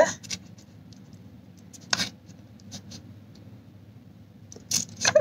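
Mugler Angel Muse eau de parfum's atomiser being sprayed onto a paper blotter card: a sharp, brief spray about two seconds in and a longer hiss near the end, over light handling of the paper and glass bottle.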